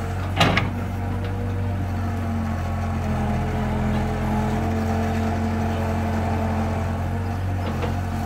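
Tracked excavator's diesel engine running steadily under load as its bucket digs at the base of a palm tree, working a little harder from about three seconds in. A single sharp knock comes about half a second in.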